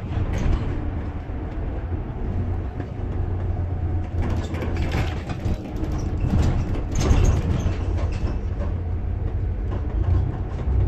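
Inside a moving bus: the diesel bus engine and road noise give a steady low rumble. Short rattles and knocks from the bus body come in the middle.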